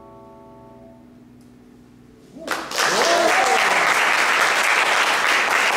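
The last vibraphone chord rings out faintly and dies away. About halfway through, audience applause breaks out suddenly and carries on steadily, with a voice cheering just after it starts.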